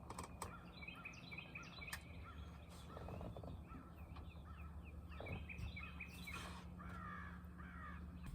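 Birds chirping and calling in quick repeated notes over a steady low hum.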